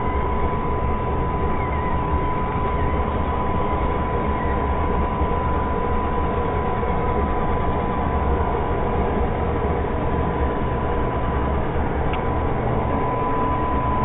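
iRobot Roomba robot vacuum running on carpet: a steady motor and brush drone with a constant high whine.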